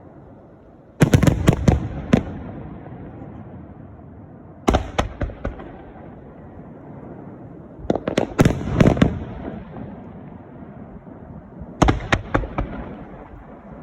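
Aerial fireworks shells bursting in quick volleys of several sharp bangs. A volley comes about every three to four seconds, four times, with a low rumbling echo between volleys.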